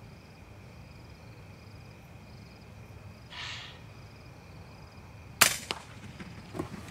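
A single air rifle shot about five and a half seconds in, a sharp crack followed by a few fainter clicks, fired at an Egyptian goose. Before it, a low steady background with a short faint hiss.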